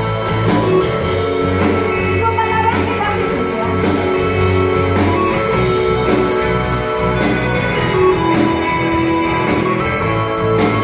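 Live band playing a song through the venue's PA: keyboard, electric guitar and drum kit, with a woman singing into a microphone, recorded from the audience.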